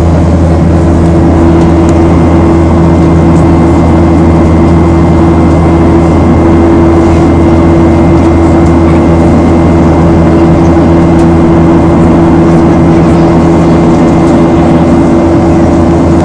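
Boeing 737-800 cabin noise in flight: the steady drone of the CFM56 turbofans and the airflow past the fuselage. It is a loud, unbroken low hum with a few held tones and a faint high whine over it.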